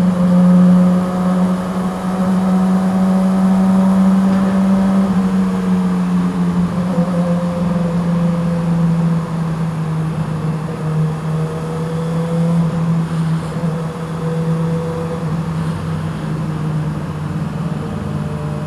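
2012 Yamaha R6's inline-four engine running at a steady cruise inside a road tunnel, really loud. Its pitch dips a little about five seconds in and then holds steady.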